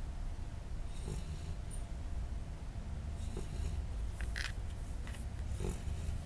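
A sleeping pet snoring: four rough snoring breaths a second or so apart, over a steady low rumble.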